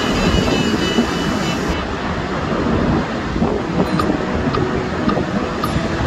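Sea surf breaking and washing up a beach, a steady rushing noise, with wind buffeting the microphone.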